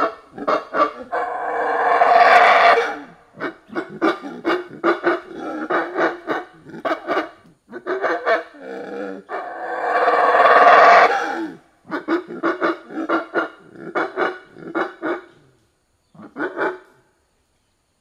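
Monkey calls: rapid runs of short barking hoots, about four or five a second, that twice swell into a long, loud scream, with a last short run near the end.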